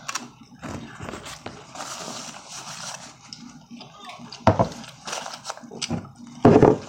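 Close-miked eating sounds: irregular smacking and chewing of pasta and fried chicken strips, with two louder, brief bursts about four and a half and six and a half seconds in.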